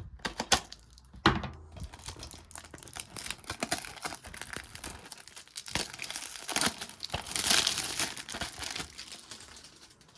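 Plastic shrink-wrap being torn and peeled off a sealed DVD case, a continuous crinkling and tearing with a few sharp clicks in the first second or two and the loudest crinkling about three quarters of the way through.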